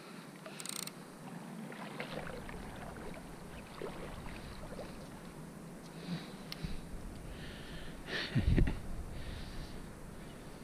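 Faint river water sloshing and splashing, with a few small clicks and one louder low thump about eight and a half seconds in.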